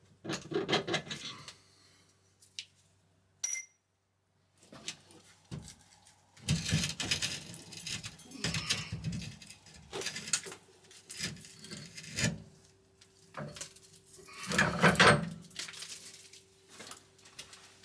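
Irregular metal clunks, knocks and scraping as the rear differential of a BMW E46 is worked loose and pulled from under the car. There is a loud cluster of knocks about fifteen seconds in.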